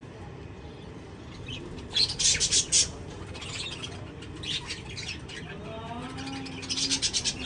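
Budgerigars chirping and chattering in quick bursts, about two seconds in, again at about four and a half seconds, and near the end, with a lower warbling call about six seconds in, over a low steady background noise.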